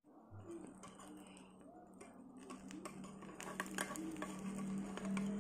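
Egg-dipped bread frying in oil in a nonstick pan, with faint crackling and popping that grows busier in the second half, over a steady low hum.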